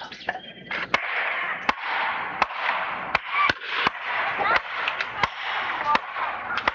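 Hammer blows, about one every 0.7 s at a steady working pace, over a steady hiss.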